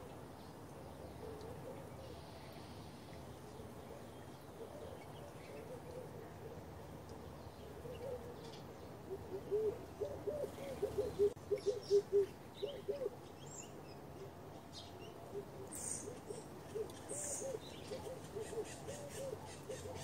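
A dove cooing: runs of short, soft notes that rise and fall, the loudest run about ten seconds in and another near the end. Small birds chirp higher up.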